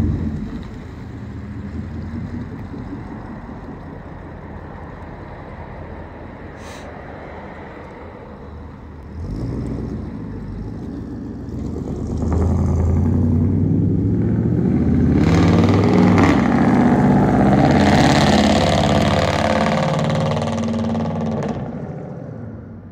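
1996 GMC Sierra's 350 (5.7 L) V8 running through a true dual exhaust with no catalytic converters and Magnaflow glasspack mufflers as the truck drives off. The exhaust grows louder about halfway through as the engine accelerates, then fades away near the end.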